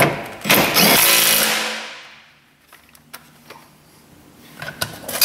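A cordless impact wrench runs briefly: about a second of loud whirring that winds down over the following second. A few light clicks of handling follow.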